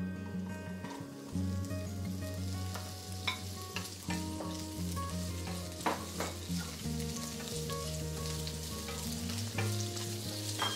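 Green bell pepper and red chili strips sizzling in hot oil in a nonstick wok as they are stir-fried with a wooden spatula. A few sharp clicks come from the spatula striking the pan.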